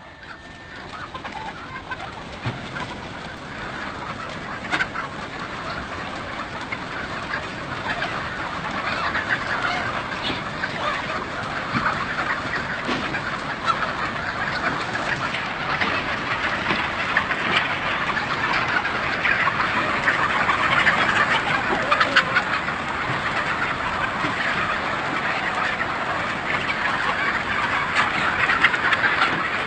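A large flock of chickens calling all at once, a dense din of overlapping calls that builds up over the first ten seconds or so and then stays loud.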